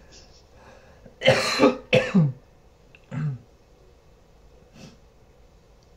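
A man coughing twice, about a second and two seconds in, then clearing his throat briefly around three seconds in.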